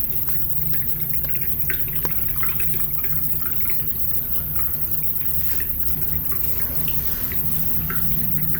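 Small irregular clicks and taps of plastic toy-car wheels being handled and pressed onto small electric motor shafts, over a steady low hum.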